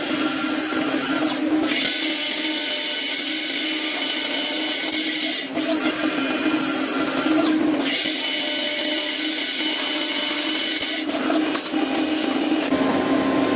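Swiss-type CNC lathe machining a metal part: a steady high cutting hiss over a steady machine hum, dropping out briefly three times as the tool pauses between cuts.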